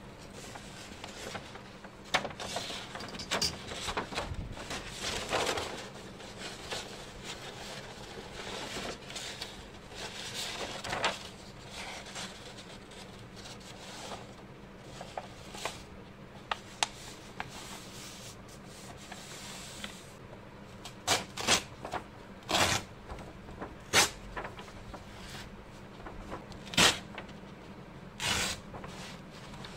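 Art supplies and a large sheet of paper handled on a tabletop: irregular rubbing and rustling, broken by sharp taps and knocks that come more often in the last third.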